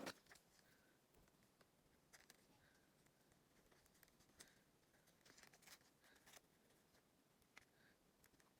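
Near silence with faint, scattered clicks and light rustles from small craft materials being handled during card-sleeve decorating.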